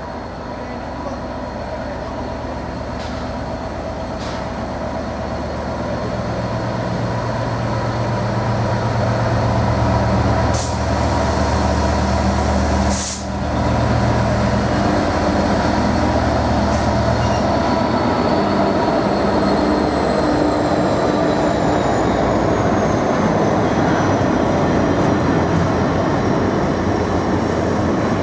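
A GB Railfreight Class 66 diesel locomotive's two-stroke V12 engine, growing louder as it approaches and loudest as it passes about halfway through. Then comes the steady noise of loaded container flat wagons rolling by on the rails.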